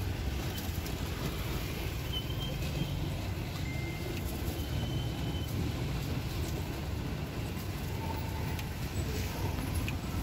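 Street traffic noise: a steady low rumble of passing vehicles, with a few short high tones and light clicks in the middle.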